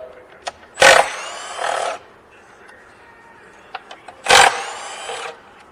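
Power tool running in two short bursts, each about a second long and starting sharply, while backing out 8mm intake manifold bolts.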